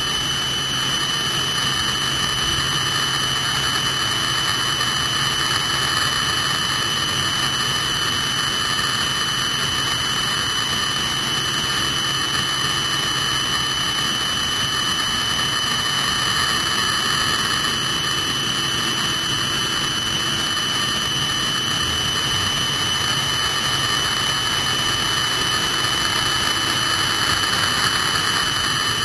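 Helicopter turbine engine running on the ground: a steady high whine over a constant rushing engine noise.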